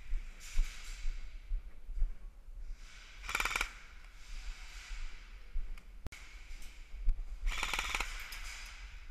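A person breathing heavily and slowly close to the microphone, with a rasp on two of the breaths. A few dull knocks and one sharp click about six seconds in are heard along with it.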